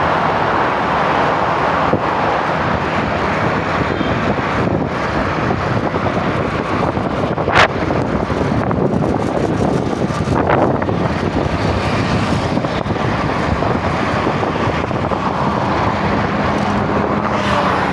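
Steady wind rush and road noise from riding in a moving vehicle, with wind buffeting the microphone. A sharp click comes about seven and a half seconds in, and a brief passing whoosh about ten seconds in.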